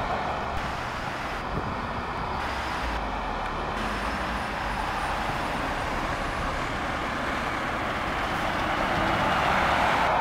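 Heavy trucks driving past, a steady mix of diesel engine and road noise that gets a little louder near the end.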